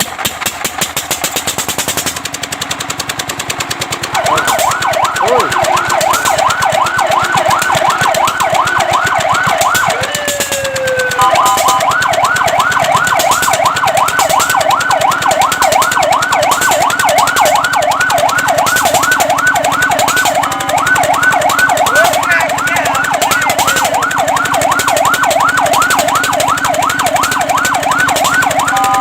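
Fire truck siren in a fast yelp, its pitch sweeping up and down about four times a second, starting about four seconds in after a few seconds of rattling, engine-like noise. Near eleven seconds it breaks briefly into a slower gliding tone before the yelp resumes.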